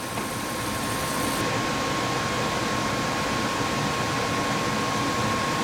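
Costway 10,000 BTU portable air conditioner running on cool: a steady rush of air from its fan with a steady whine over it.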